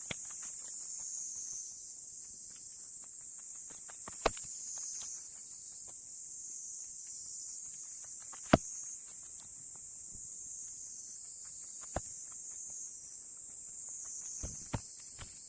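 Split firewood logs knocking as they are set down on a woodpile: single sharp wooden knocks a few seconds apart, about four in all, the loudest near the middle. A steady high-pitched hiss runs underneath.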